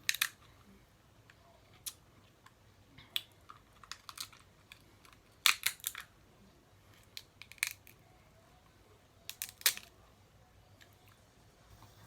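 Snow crab leg shells being cracked and snapped apart by hand: irregular sharp cracks and clicks, several in quick succession about halfway through and again about three-quarters through.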